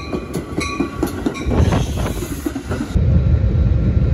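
Train on the rails, wheels clattering with a few high squeals. About three seconds in it changes abruptly to a steadier low rumble, as heard riding inside a moving train car.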